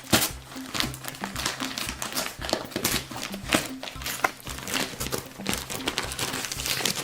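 Background music with a low, stepping bass line, with many sharp crinkling clicks over it.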